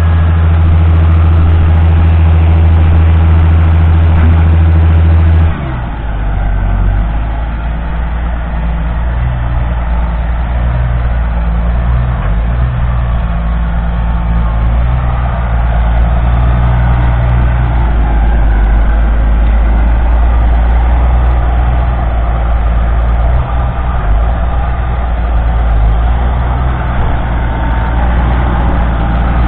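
Six-cylinder diesel engine of a Lamborghini R6.140 tractor running steadily under load with a plough. About five seconds in the sound changes abruptly to a quieter engine note that wavers in pitch.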